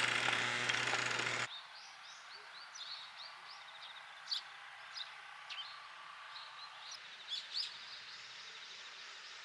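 A loud, steady noise with a low hum cuts off sharply about a second and a half in. After it, small birds chirp and call in short, high notes against quiet rural background sound.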